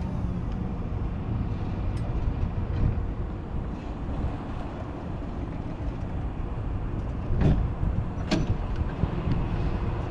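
Crown RR5225-35 electric reach truck lowering its forks and then starting to drive and turn: a steady low rumble, with a sharp click about two seconds in and two louder knocks around seven and a half and eight seconds in.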